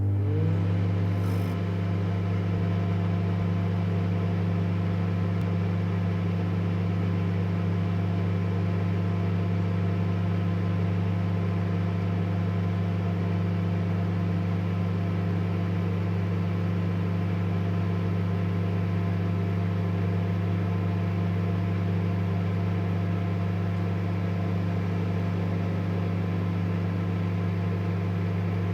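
Microwave oven running: a steady, even hum that stops near the end.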